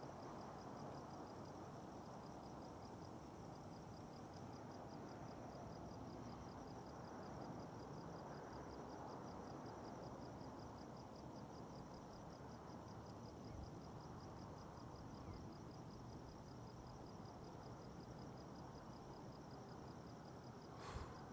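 Crickets chirping in a fast, even pulse over a faint steady hiss, with a brief knock near the end.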